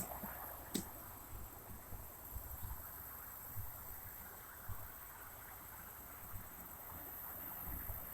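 Quiet outdoor ambience: a steady high-pitched insect drone over an irregular low rumble, with a single click about a second in.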